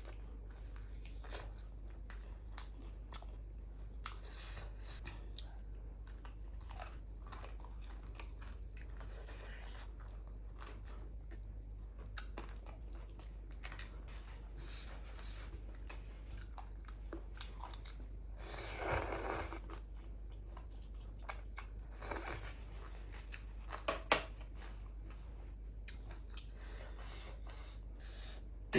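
Close-miked chewing and crunching of food: soft, irregular mouth clicks over a steady low hum, with a longer, louder noisy stretch about two thirds of the way through.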